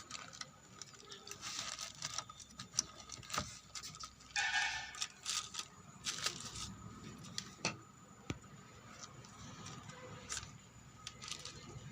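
Scattered light clicks and taps from handling work on an amplifier circuit board, with a brief hissing burst about four and a half seconds in.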